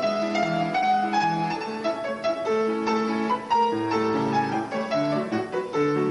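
Classical piano music, a continuous run of notes and chords.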